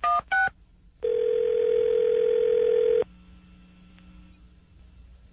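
Telephone line audio: the last touch-tone keypad beep of a number being dialled, then about a second later a steady ringing tone that sounds for about two seconds while the call rings through. After that comes faint line hiss.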